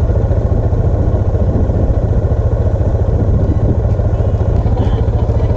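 Suzuki DR650SE single-cylinder engine idling close to the bike-mounted camera, a steady, rapid low pulsing.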